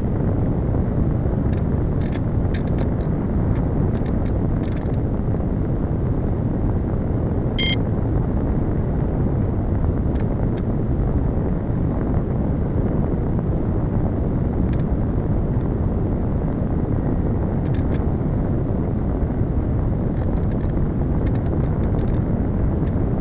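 Steady rushing wind noise from air streaming past a Slow Stick RC plane's onboard camera as it glides with the motor throttled back, with no motor whine. A few faint crackles come through here and there.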